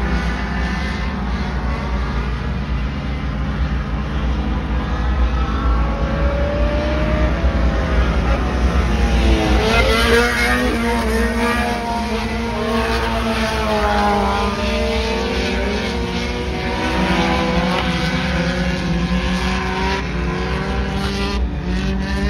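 Several front-wheel-drive race cars running laps together, their engines revving up and down as they pass, loudest about ten seconds in.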